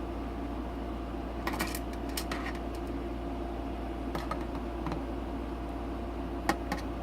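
Scattered light clicks and ticks of a screwdriver working the small hard-drive mounting screws on a DVR case: a cluster a second and a half in, one a little past four seconds and a sharper click near the end. A steady low hum runs underneath.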